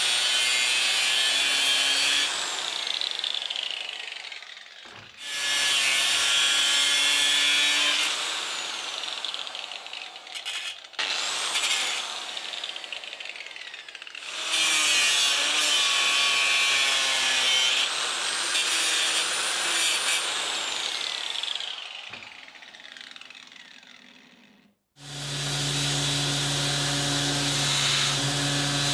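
Angle grinder grinding steel in several separate runs, its whine falling away as it spins down at the end of each. About 25 s in, a belt grinder takes over, running with a steadier low hum as steel is ground against the belt.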